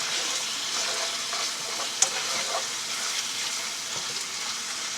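Cubed chicken breast sizzling in hot oil in a frying pan, a steady hiss, with one sharp clack about two seconds in.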